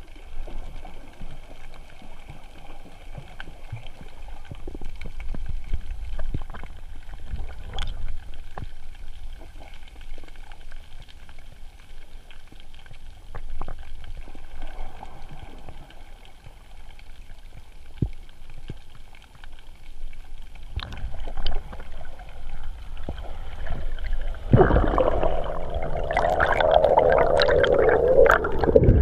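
Underwater sound picked up through a GoPro's waterproof housing: a muffled low rumble of the sea with scattered sharp clicks. About 24 seconds in, a much louder rush of bubbles and churning water sets in and keeps on to the end as the camera rises toward the surface.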